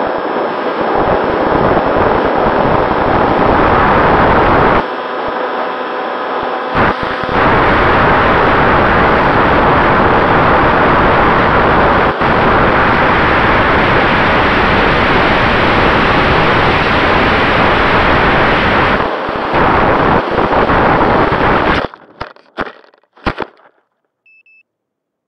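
Wind rushing over the onboard camera microphone of a Zeta Phantom flying wing in flight, with the steady whine of its electric pusher motor and propeller, clearest in the first several seconds. The rushing cuts off suddenly near the end, followed by a few short knocks.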